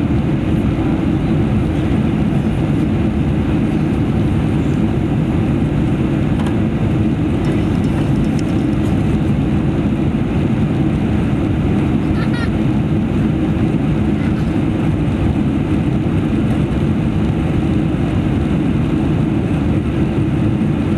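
Steady low roar of engines and rushing air heard inside the cabin of a Boeing 747-400 in flight.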